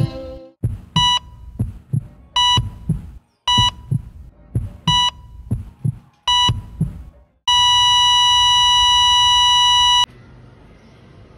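Heart-monitor sound effect: five short beeps about a second and a quarter apart over low heartbeat thumps, then one long unbroken flatline tone for about two and a half seconds that cuts off abruptly. The flatline is the sign of the heart having stopped.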